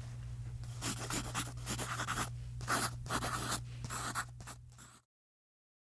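Marker pen writing: a run of short scratchy strokes, over a low steady hum. It cuts off suddenly about five seconds in.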